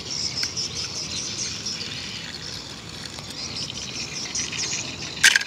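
Outdoor background of insects and birds chirping in a steady high chorus, with a brief louder rasp near the end.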